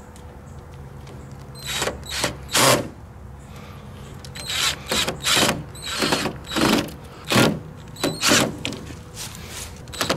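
Cordless drill driving long screws through a plastic end bracket into an aluminium awning frame, in a series of short trigger bursts that start about two seconds in and come quickly one after another from about halfway.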